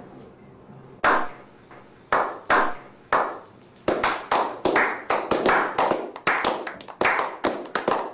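A slow clap: single hand claps about a second apart that speed up and are joined by more people, building into quick, overlapping clapping by a small group.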